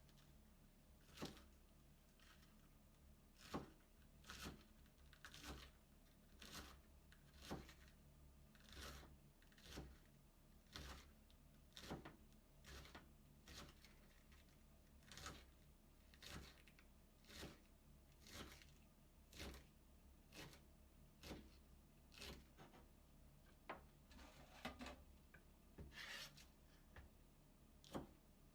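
Knife shredding cabbage into thin strips on a cutting board, short crisp cutting strokes at a slow, even pace of about one a second.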